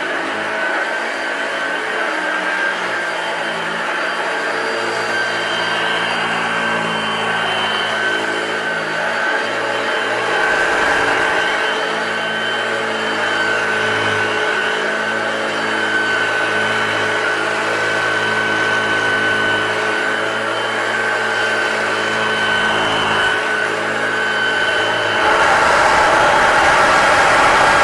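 A 1981 Hoover Junior U1012 upright vacuum cleaner running steadily, its motor giving a constant whine. The sound grows louder and rougher near the end.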